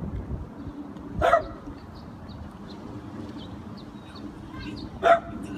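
A dog barks twice, once about a second in and again near the end, with faint short high chirps between the barks.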